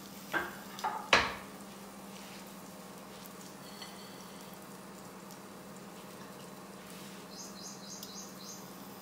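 A cooking utensil knocks against the frying pan three times in quick succession, the third the loudest, as kebabs are moved in the pan. Then a faint steady frying hiss with a low hum, and a quick run of faint high chirps near the end.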